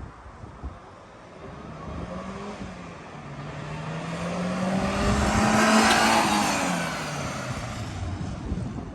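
Subaru Sambar mini truck's small supercharged four-cylinder engine as the truck drives past: the engine note rises as it comes closer, is loudest about six seconds in with tyre noise, then drops and fades as it moves away.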